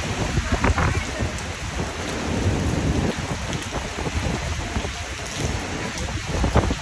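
Hurricane Ian's wind and heavy rain: gusts buffet the microphone with a heavy, uneven low rumble over a steady hiss of rain.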